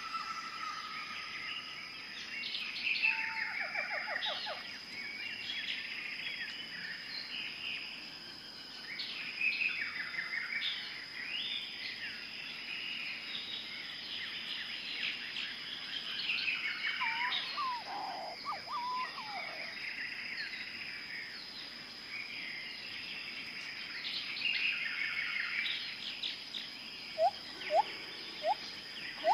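Rainforest birds chirping and trilling in an overlapping chorus over a steady high insect drone, with a few quick rising whistled notes about two-thirds of the way in and again near the end.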